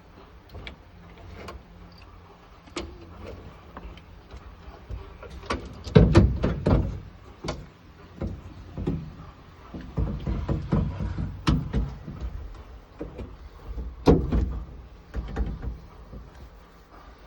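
Irregular clicks, knocks and rattles from hands-on work on a car door's inner parts and trim. The loudest knocks come about six seconds in and again about fourteen seconds in.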